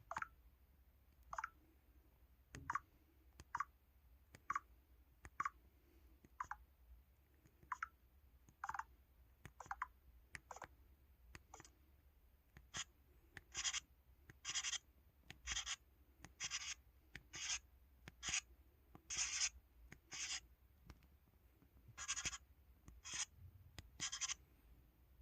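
LG-KH8000 phone's 'Writing' keypad button sound: a short pencil-scratch stroke with each key press, about one a second. The strokes grow longer and louder in the second half.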